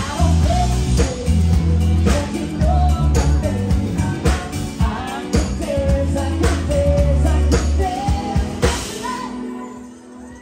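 Live band playing a pop-rock song with a woman singing over heavy bass and drums. The song ends on a last loud hit about nine seconds in, which rings out and fades.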